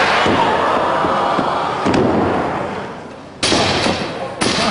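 Wrestlers' bodies slamming onto the ring mat. One loud impact at the start trails off over about two seconds, then two more sharp impacts come about a second apart near the end, echoing in the hall.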